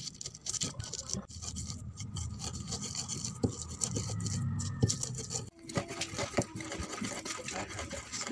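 Stone pestle crushing and grinding chillies, shallots and garlic in a stone mortar (Indonesian cobek and ulekan): steady rough scraping of stone on stone, with scattered short knocks. The scraping breaks off briefly about five and a half seconds in.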